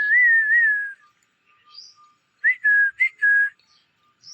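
Clear whistling: one long whistle with a wavering, gently falling pitch lasting about a second, then a quick run of four short whistled notes about two and a half seconds in.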